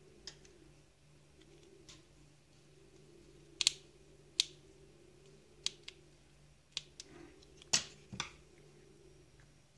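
Small plastic and metal parts of a Saeco Royal coffee grinding unit clicking and tapping as they are handled and fitted together by hand: about ten sharp, irregular clicks, the loudest about three and a half seconds in and near the eight-second mark, over a low steady hum.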